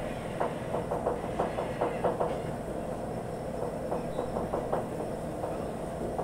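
Raw beef chunks being threaded onto bamboo skewers by gloved hands: soft clicks and taps from the sticks and the metal tray, in a run in the first two seconds and again around four seconds in, over a steady low machine drone.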